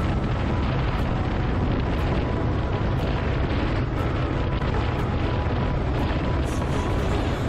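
Wind buffeting an exposed microphone, with spray rushing from the bow wave of a motor cruiser running at speed: a loud, steady low rumble. Background music with a light tick about once a second runs underneath.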